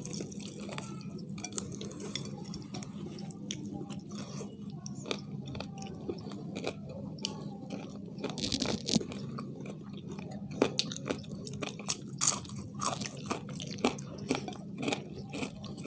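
People chewing and biting into fried chicken, with irregular crunches and wet mouth clicks, over a steady low hum.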